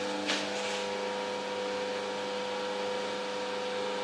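Steady mechanical hum with a constant whine over a hiss, broken by a brief knock about a third of a second in.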